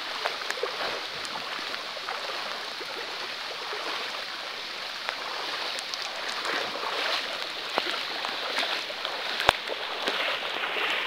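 Heavy rain and floodwater on a flooded street: a steady hiss with scattered sharp ticks, the loudest about nine and a half seconds in.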